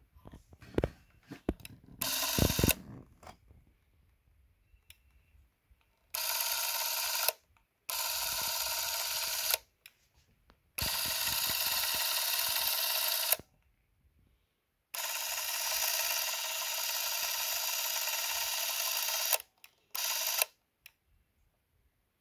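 Braun Nizo 801 macro Super 8 camera's electric motor whirring in five runs of about half a second to four seconds, each starting and stopping abruptly, after a few handling clicks and knocks in the first three seconds.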